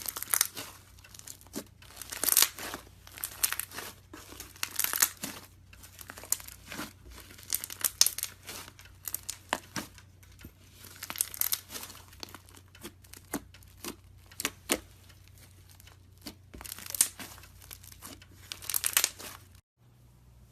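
Iceberg slime being pressed and squeezed, its dried, hardened top crust crackling and crunching in repeated bursts. The crackling cuts off suddenly near the end.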